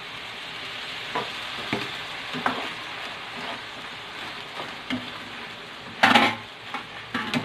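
Shrimp in tomato sauce sizzling in a frying pan just after a little water has been added, while a spatula scrapes and knocks against the pan as the food is stirred. The loudest scrape comes about six seconds in.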